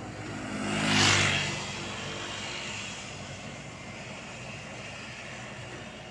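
Komatsu PC78US mini excavator's diesel engine running as the machine crawls on its tracks. A louder surge of engine and rushing noise swells and fades about a second in, then the running settles to a steady level.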